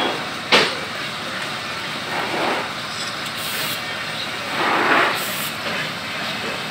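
Steady street traffic noise, swelling twice as vehicles pass, with a single sharp metallic click about half a second in from the brake hub and backing plate being handled.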